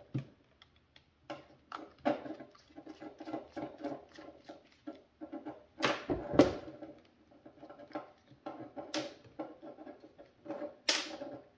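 Small plastic parts of a power mirror's motor unit being handled and pried at: a run of light clicks and rattles, with sharper snaps about six, nine and eleven seconds in.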